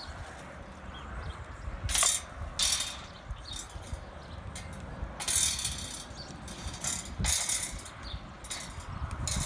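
Metal wire grill grate rattling and scraping as it is handled, in several short bursts, the loudest about two seconds in and from about five to seven and a half seconds in.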